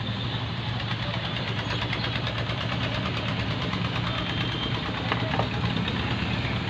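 A vehicle engine idling steadily, a low hum with a fast even pulse, amid street traffic, with a couple of light clicks.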